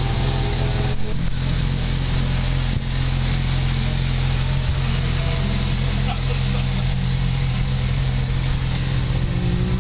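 Motorcycle engine idling steadily, with a slight rise in pitch near the end.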